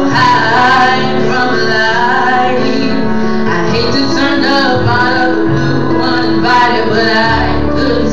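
A woman singing solo into a microphone over instrumental accompaniment of held chords and bass notes.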